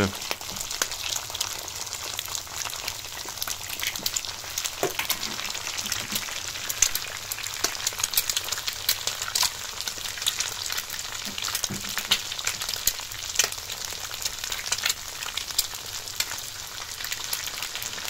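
Kavurma and eggs frying in a pan on a wood stove: a steady sizzle with many small crackling pops of spitting fat.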